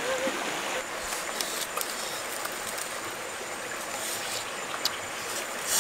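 Shallow, rocky river running: a steady rush of flowing water, with a few small clicks and taps from about a second in.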